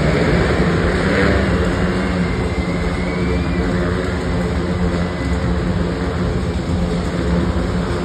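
Several motorcycles circling inside a steel-mesh globe of death, their engines running together in a steady, loud drone of overlapping engine notes.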